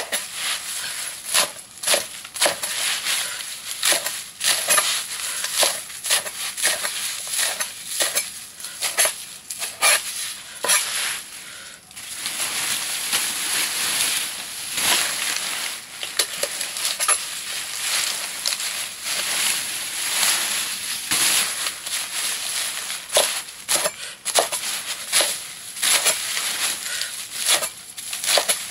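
Irregular crunching, snapping and rustling of leafy fodder plants being broken and handled, thickening into a denser stretch of crunching about halfway through, over a faint steady high whine.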